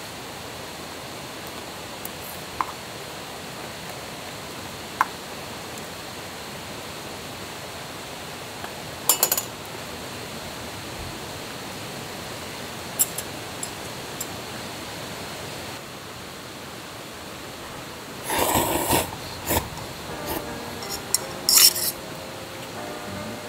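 Occasional light clinks and taps of metal camp cookware and utensils over a steady hiss. A busier, louder run of clattering comes about three quarters of the way in.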